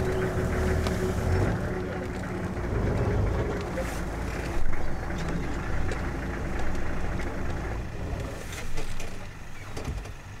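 A vehicle engine idling with a low, steady hum that eases off about eight seconds in, with scattered short clicks and one louder knock about halfway.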